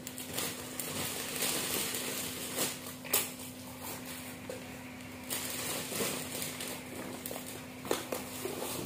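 Plastic goodie bags and foil snack packets crinkling and rustling as they are handled and packed, with scattered sharp crackles.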